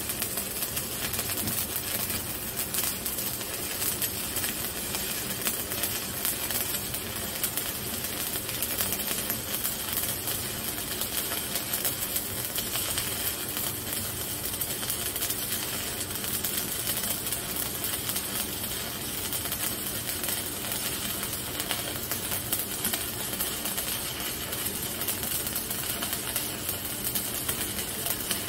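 Stick (shielded metal arc) welding: a 3.2 mm electrode burning a straight bead on thick steel plate at about 100 amps, the arc giving a steady, continuous crackle with fine spatter pops.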